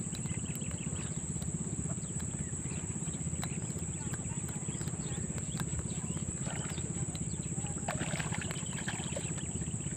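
Steady high-pitched insect drone over a low, rapidly pulsing motor hum. Faint splashing about eight seconds in, as a fish shot on a line thrashes at the water's surface.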